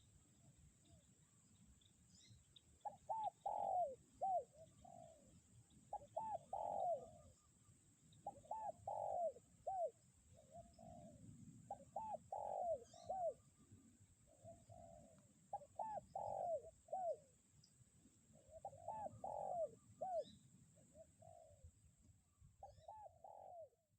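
Spotted dove (tekukur) cooing its song phrase again and again, about once every three seconds, over the low rumble of strong wind on the microphone.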